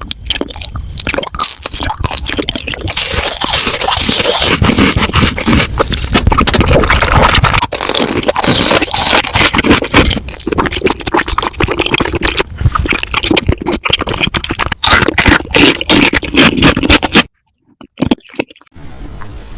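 Close-miked crunching, chewing and scraping of food, a dense run of crackly clicks that breaks off briefly near the end and resumes more quietly.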